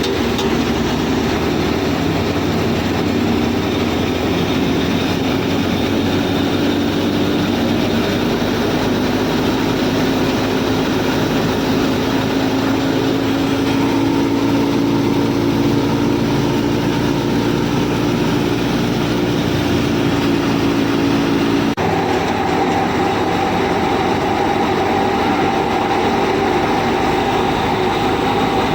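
A small motor driving a DIY model machine, running steadily at a loud level. About three-quarters of the way through it changes abruptly to a different steady pitch.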